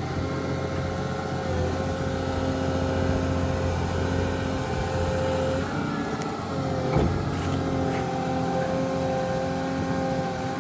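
Diesel engine of a Volvo EW180C wheeled excavator running steadily, its low note growing louder about a second and a half in, with a steady whine over it. A single sharp clank about seven seconds in.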